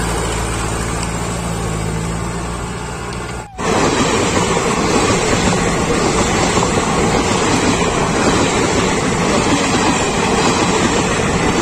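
A Powertrac tractor's diesel engine running steadily; about three and a half seconds in it cuts off abruptly, giving way to the steady running noise of passenger train coaches rolling past close by.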